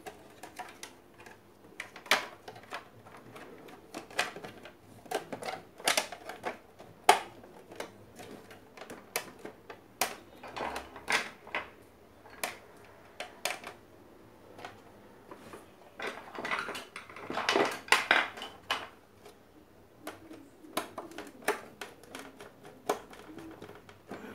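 Irregular clicks, taps and clatter of blender parts and tools being handled, with a denser run of knocking about two-thirds of the way through.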